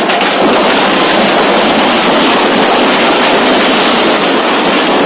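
Firecrackers packed inside a burning Ravana effigy going off so fast that they merge into one loud, steady crackling noise.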